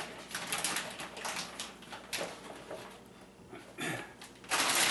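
Frozen banana chunks tumbling out of a plastic bag into a Vitamix blender jar: irregular knocks and clatter against the plastic jar, with bag rustling, and a louder rustle near the end.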